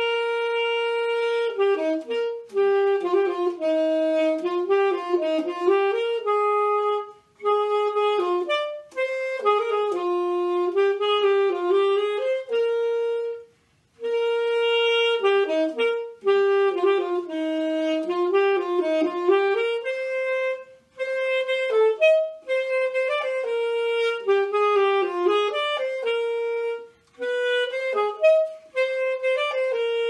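Alto saxophone playing an unaccompanied solo melody, one note at a time, in phrases of several seconds with short breaks between them.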